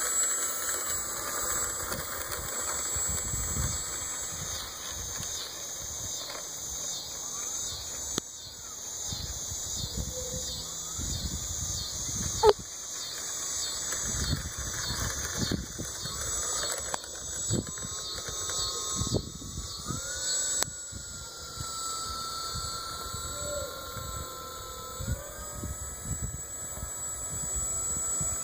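Electric motor and propeller of a Great Planes Sopwith Camel EP model biplane whining as it taxis on pavement, the pitch rising and falling with the throttle. Wind rumbles on the microphone throughout, and there is one sharp knock about twelve seconds in.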